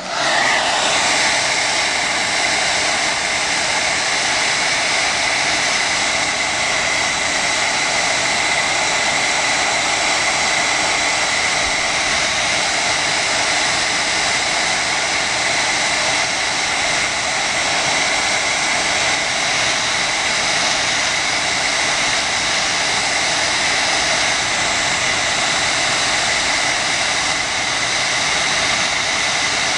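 Handheld hair dryer coming on and then blowing steadily at close range: a loud rushing noise with a steady high whine. It is heating a phone's screen to soften the adhesive under the glass.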